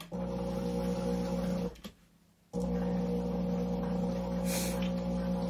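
Electric sewing machine running at a steady speed as it stitches down the side of a zipper. It stops for under a second about two seconds in, then starts again.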